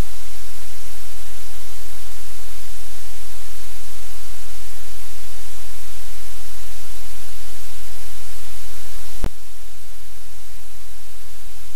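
Loud, steady hiss like static, with a low hum beneath it. About nine seconds in there is a single click, after which the hiss drops a little and the hum fades.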